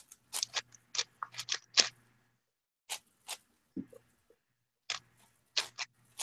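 Plastic clicking and clacking of a 7x7 speedcube's layers being turned quickly by hand, in irregular runs of turns with a short pause about two and a half seconds in.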